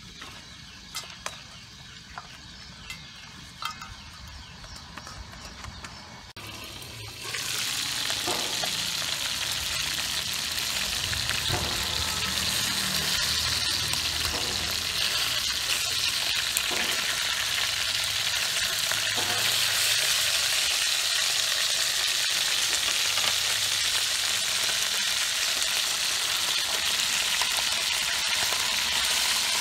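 Whole fish sizzling loudly in a hot aluminium pot over a fire, the steady sizzle starting suddenly about a quarter of the way in, with a few faint knocks of metal tongs. Before that, only soft scattered clicks of hands moving cut banana flower in a metal bowl.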